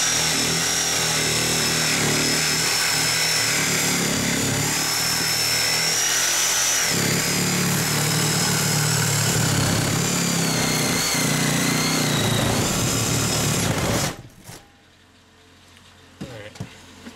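Craftsman cordless reciprocating saw cutting through the side of a large electric motor's copper-wound stator: a loud, steady sawing noise with a wavering high whine, which stops abruptly about 14 seconds in. A few light knocks follow near the end.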